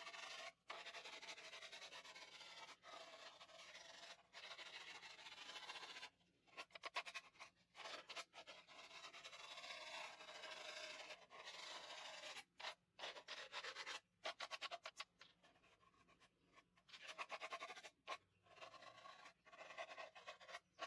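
Faint scratchy rasping of a clear plastic cup rubbed by hand on a sheet of sandpaper, in runs of strokes broken by short pauses and one longer pause about three quarters of the way through. The sanding roughs up the plastic so that epoxy will adhere.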